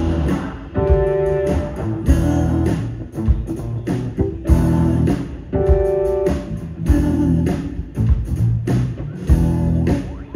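Live band playing an instrumental passage on electric guitars, bass guitar and drum kit, with no singing. Held guitar chords ring out about a second in and again about six seconds in.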